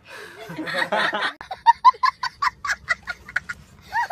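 A small boy laughing hard in rapid, high-pitched bursts, about five a second, over the low hum of a car interior; a brief stretch of voices comes before it.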